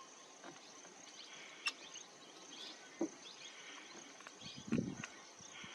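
Steady high-pitched drone of crickets, with a few short low sounds and faint clicks at intervals.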